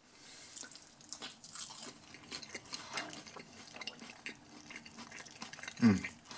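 Faint crackling and small clicks of the crumbly breading on a baked onion ring as it is torn apart by hand. A short voiced hum or grunt near the end.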